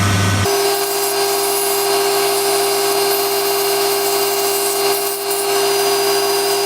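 Wood lathe running with a steady whine while a turning tool or abrasive works the spinning wood spindle, giving a hiss over the motor tone. The sound changes abruptly about half a second in, from a lower hum to the higher whine.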